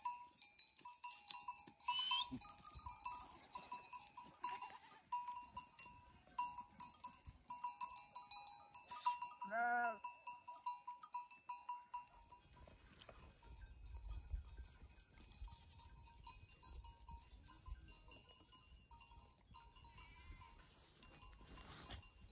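A flock of sheep and goats with a single bleat about ten seconds in, over faint clinking of small bells. A low rumble comes in during the second half.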